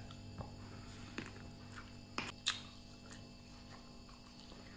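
Faint chewing of a grilled chicken foot, a few small clicks and crackles from biting bone and skin over a low steady hum.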